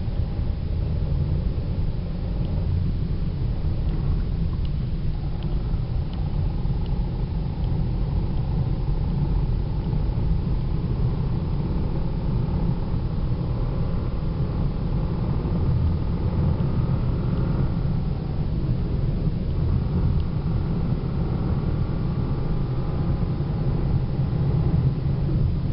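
Toyota Celica with a manual transmission being driven, heard from inside the cabin: a steady low rumble of engine and road, with a faint whine that glides up in pitch in the middle and again near the end. The car has a chattering noise, louder in higher gears, which the owner suspects is a failing throw-out bearing.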